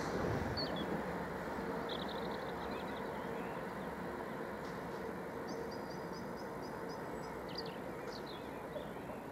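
Electric train moving away, its running noise slowly fading, with birds chirping a few short trills over it.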